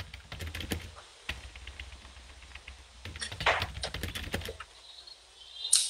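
Wine being tasted from glasses: scattered small clicks and taps of glass and microphone handling over a low rumble, a louder noisy sip about three and a half seconds in, and a short sharp hiss near the end.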